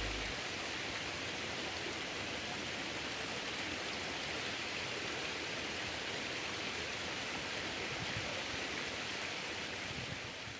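Steady, even rush of river water flowing past rocks, fading out near the end.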